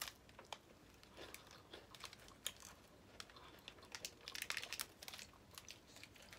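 Faint, scattered crinkling of a plastic snack wrapper being handled, with crunching bites and chewing of a wafer bar.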